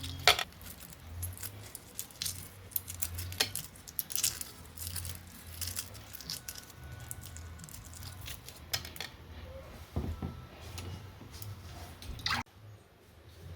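Kitchen handling sounds: scattered light clinks and knocks of utensils and dishes over a low hum, dropping away suddenly near the end.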